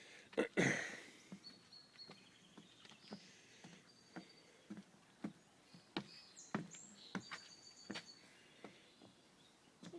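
Footsteps crunching along a woodland hiking trail at a steady walking pace, about two steps a second, with a brief louder rustle or scuff just under a second in. Faint bird chirps sound in the background.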